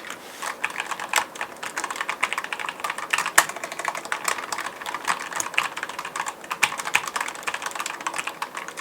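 Typing on a mechanical keyboard with linear switches: a steady, fast run of keystrokes, the key clicks coming several a second with no pauses.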